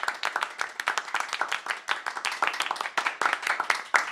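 Applause: many hands clapping in a dense, steady patter.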